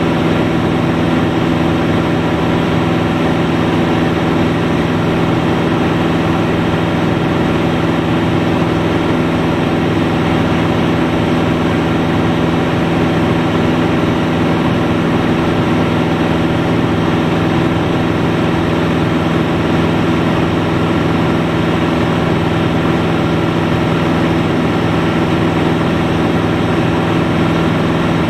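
Single-engine piston aeroplane's engine and propeller running steadily in level flight, a constant drone heard from inside the cockpit.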